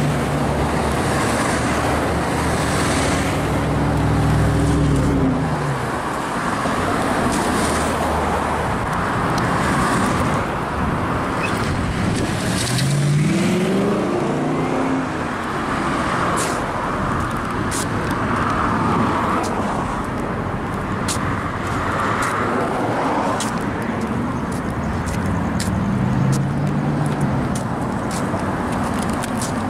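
Road traffic noise: a steady rush of passing vehicles with engine hum. Around the middle, one engine rises in pitch as it accelerates, and scattered sharp clicks come in the second half.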